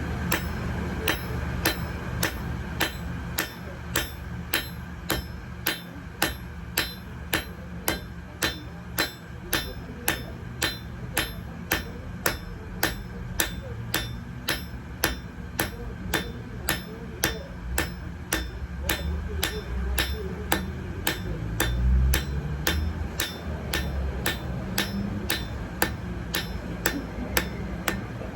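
Blacksmith's hammer striking metal on an anvil in a steady rhythm, about two blows a second, over a steady low rumble.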